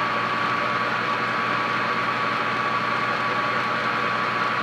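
Small Chinese metal lathe running under power, its spindle turning a tap while the half nuts are closed on the lead screw and the carriage feeds along: a steady mechanical whir with a constant high whine.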